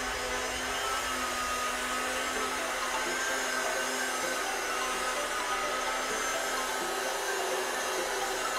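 Electric rotary polisher running steadily against car glass, a constant motor whine over a hiss, as scratches are polished out of the window.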